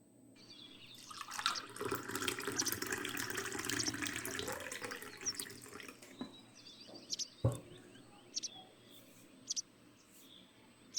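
Homemade cucumber and lemon juice being poured into a glass: a steady rush of liquid for about five seconds, its tone rising as the glass fills, then a few drips and a single knock.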